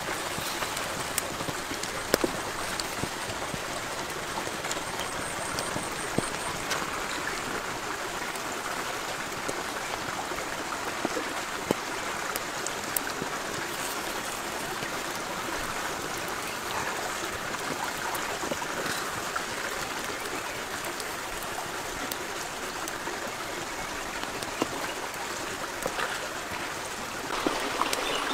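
Squid and vegetables in sauce sizzling and bubbling in a wok over a wood fire: a steady hiss with scattered small pops and clicks.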